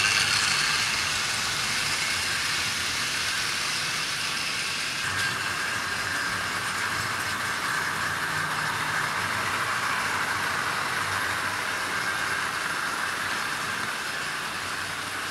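00 gauge model trains running on the track: a steady whirr of the locomotive motors and wheels on the rails, a little louder in the first second or so.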